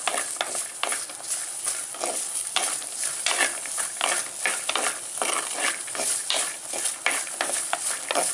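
Wooden spatula stirring and scraping small shallots around a hot, dry pan, in quick irregular strokes, two or three a second. The shallots are being dry-roasted without any oil.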